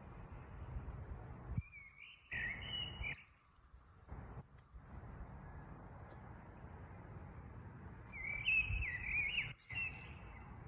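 A bird singing two short phrases of song, one about two seconds in and another near the end, over a steady low background rumble.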